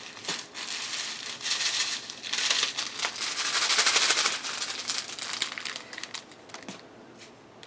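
Small plastic bags of diamond-painting drills crinkling as they are handled, loudest in the middle and dying away near the end.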